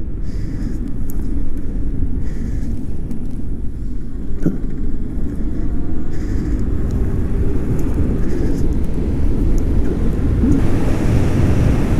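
Wind buffeting the microphone and tyre rumble from a Delfast Top 3.0 electric e-bike riding fast on pavement, building slightly as it gains speed. A single sharp click about four and a half seconds in.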